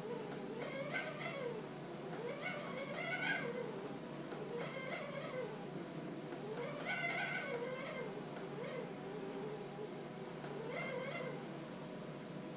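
A cat meowing over and over, a drawn-out call every second or two, each rising and then falling in pitch.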